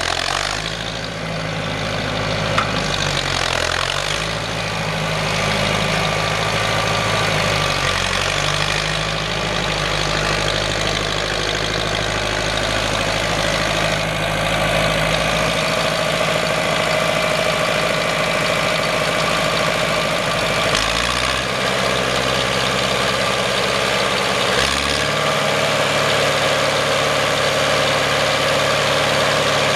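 1962 John Deere 3010's four-cylinder gasoline engine running steadily as the tractor is driven, its engine note stepping up and down in pitch several times.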